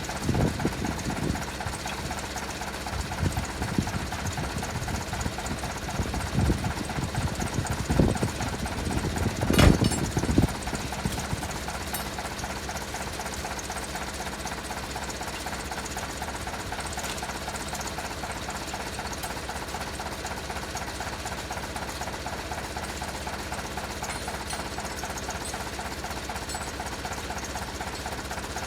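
Tractor engine running steadily with an even knocking beat, with several clunks of metal in roughly the first ten seconds, the loudest just before ten seconds in.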